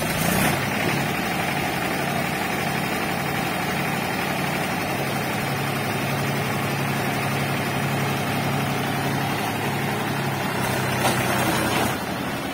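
Mahindra 275 DI Eco tractor's three-cylinder diesel engine running steadily at an even speed, a little louder briefly near the end.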